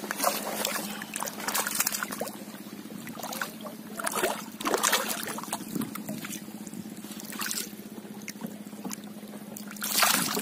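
Water splashing in a shallow rock pool as a caught fish flaps and thrashes, in several separate bursts, the loudest near the end. A steady low hum runs underneath.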